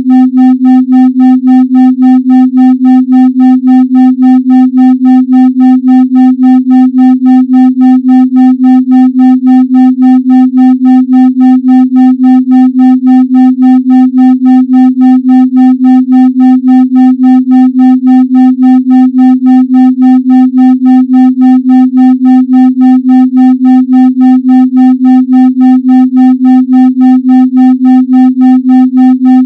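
A steady electronic 256 Hz tone pulsing evenly about three and a half times a second, a brainwave-entrainment tone for deep meditation.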